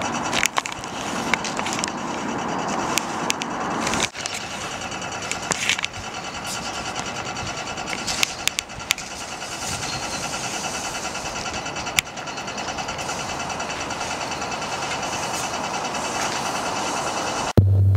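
Steady city street noise with scattered sharp clicks and knocks; it cuts off abruptly near the end.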